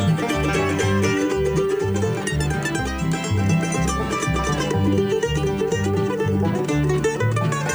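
Upbeat country-bluegrass music with plucked strings and a steady, even bass beat; no singing in this stretch.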